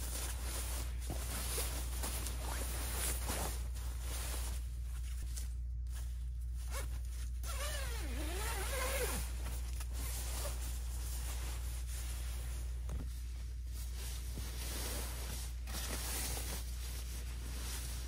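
Nylon sleeping bag rustling and crinkling as it is handled, spread out and climbed into, with a zipper being worked.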